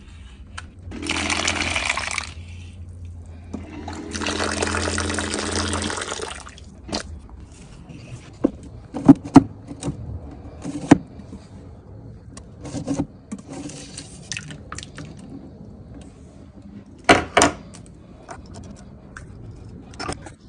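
Kitchen tap water running into a plastic cup in a stainless steel sink, in two spells of about one and two and a half seconds, with a low hum while it runs. Then scattered sharp knocks and clicks as the wire crab snare and the cup are handled against the sink, the loudest about nine to eleven seconds in.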